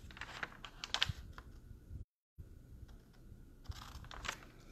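Faint, irregular light clicks and taps, like fingers handling or tapping the phone that is streaming, with a brief cut to total silence just after two seconds in.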